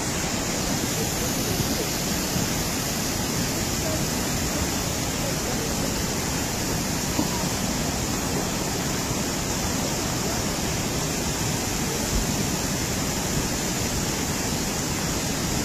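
Muddy floodwater of a swollen mountain river rushing steadily in a dense, unbroken wash of noise.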